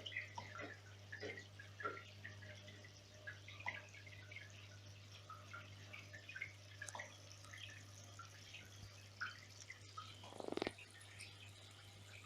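Water dripping and trickling in a small water feature, with scattered irregular drips over a steady low hum and one louder burst about ten seconds in.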